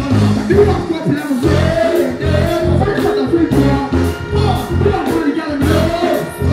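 Live dancehall performance through a concert PA system: a deejay chanting and singing into a microphone over a riddim with a steady, heavy bass beat.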